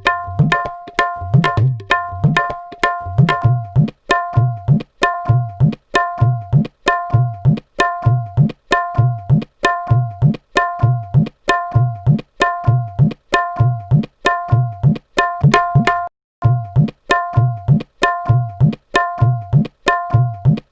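Tabla playing a steady repeating rhythm: ringing, pitched strokes on the small right-hand drum alternate with deep strokes on the left-hand bass drum that bend upward in pitch. The pattern breaks off briefly about three-quarters of the way through, then resumes.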